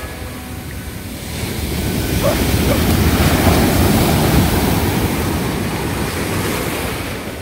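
Ocean surf: a wave breaks and washes in, the roar of water swelling about a second and a half in and easing off again toward the end.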